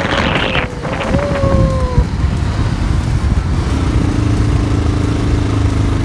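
Motorcycle engine running while riding, over a dense low road and wind rumble. Its note falls in pitch over the first two seconds, then holds steady from a little past halfway.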